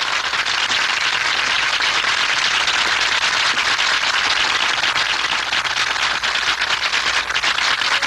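Audience applauding: a dense, steady round of clapping that stops abruptly at the end.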